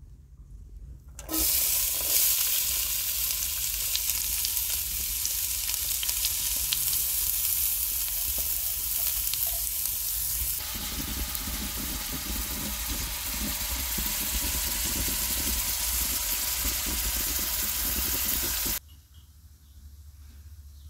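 Diced onions sizzling as they hit hot oil in a frying pan, starting suddenly about a second in. They keep frying steadily and cut off abruptly near the end.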